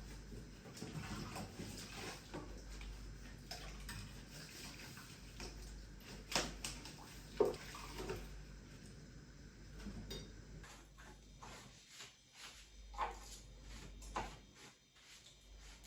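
Light household clatter: scattered knocks and clinks, like dishes or objects being handled, over a faint steady low hum.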